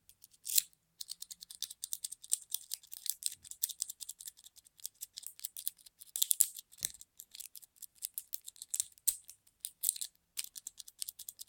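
A handmade 0.019-inch city rake worked in and out of a pin-tumbler lock's keyway against tension: fast, uneven metallic clicking and scratching as the pick scrapes over the pins, with brief pauses about a second in and near the end.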